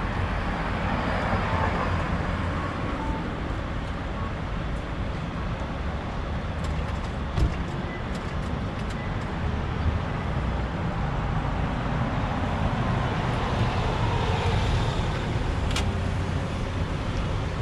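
Street traffic: cars passing on the road with a steady rumble, and one short thump about seven seconds in.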